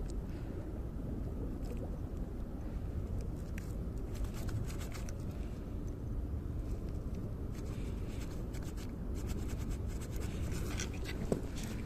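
Steady low rumble with scattered light scraping and clicking handling noises.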